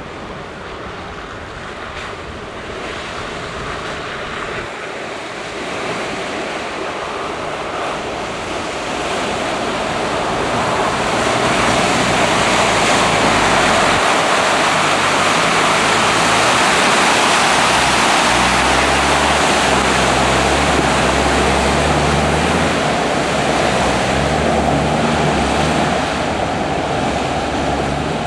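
An off-road 4x4's engine working hard as the vehicle ploughs through deep mud and water, under a steady rush of splashing and sprayed mud. The noise builds over the first dozen seconds and stays loud, with the engine's low drone coming through more clearly in the second half.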